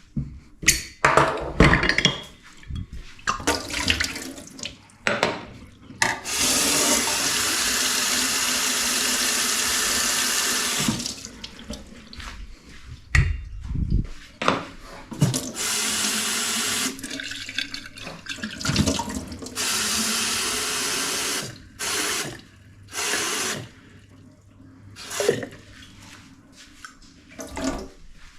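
Kitchen tap running into a sink in three runs, the first about five seconds long and the other two shorter, with knocks and clatter of things being handled in between.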